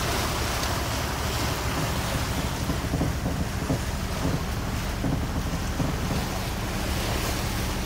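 Steady wind buffeting the microphone over the rush of choppy sea water around a boat under way, with a low rumble underneath.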